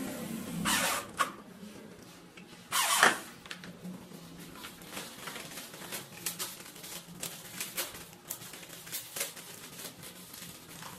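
Two short bursts from a corded electric drill driving screws into a door hinge, about a second in and again about three seconds in. Then scattered clicks and light rustling as tools are picked up and packed away.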